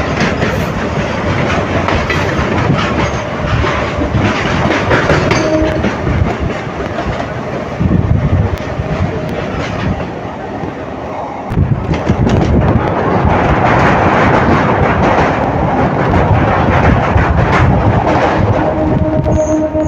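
An electric multiple-unit local train running at speed, heard from its open doorway: wheels clattering over the rail joints and a rush of wind. A freight train of hopper wagons passes close by on the next track. The noise eases briefly about ten seconds in, then comes back louder.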